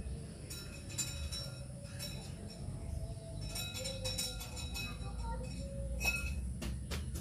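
Light metallic clicks and clinks of small pointed-nose pliers gripping and bending wire into a loop: scattered sharp ticks, each with a brief metallic ring, clustered about a second in, around four seconds and around six seconds, over a low steady hum.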